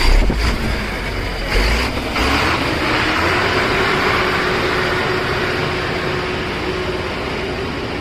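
JCB 3DX backhoe loader's diesel engine running under load while the backhoe arm digs, with a steady drone. Two heavy low thumps come in the first two seconds.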